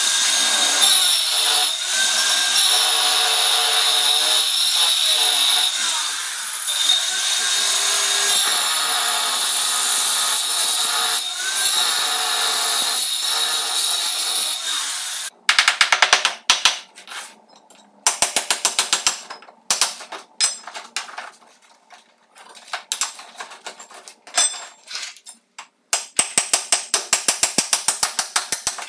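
Angle grinder with a cutting disc sawing through floor screed, a loud steady whine; it stops suddenly about halfway through. After that come bursts of rapid metallic knocking as the screed edge is chiselled out.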